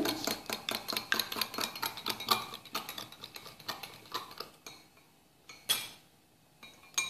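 A metal utensil beating an egg in a small glass bowl, clinking rapidly against the glass, stopping about four and a half seconds in; two single clinks follow.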